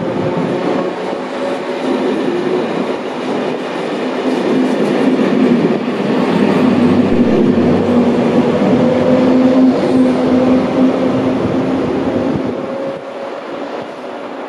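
CFL Serie 2000 electric multiple unit running on the rails: wheel and running noise with a steady hum, louder through the middle and dropping off near the end.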